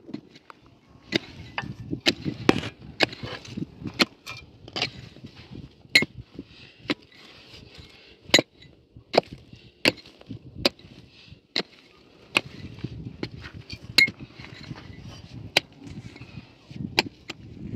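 A short-handled pick striking hard, stony soil, a sharp chop roughly every second, with the gritty scrape of loosened earth and stones between blows.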